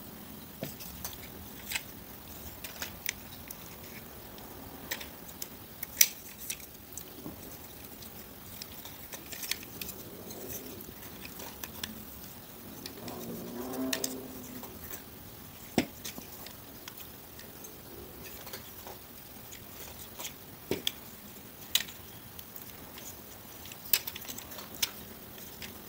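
Plastic parts of a Transformers action figure clicking and knocking as it is handled and its parts are pushed and repositioned: scattered irregular clicks with a few louder snaps.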